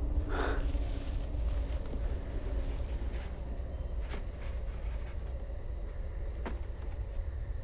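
Outdoor dusk ambience: insects chirping in a steady, even rhythm over a low rumble, with a brief hiss just after the start and a few faint clicks.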